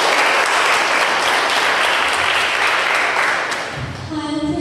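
Audience applauding, fading out after about three and a half seconds; near the end a held, pitched voice or tune begins.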